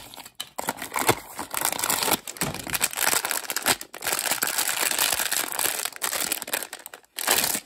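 Hands pulling a toy out of a small cardboard blind box with a few sharp clicks, then a silver foil blind bag crinkling steadily as it is handled and torn open.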